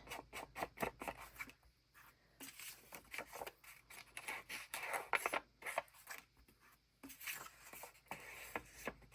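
Distress ink being rubbed and dabbed onto paper edges with an ink applicator: short, irregular scratchy strokes and light taps, with brief pauses.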